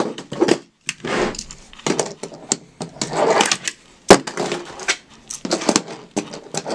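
Handboard rolling across a tabletop, its small wheels giving a rough rolling noise broken by several sharp clacks as the board is popped and lands.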